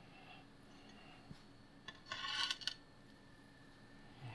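Hands working a glass sheet against the rubber edge-trim seal of a PC side-panel frame: one short scraping rub, under a second long, about two seconds in, with a few light clicks over faint room tone.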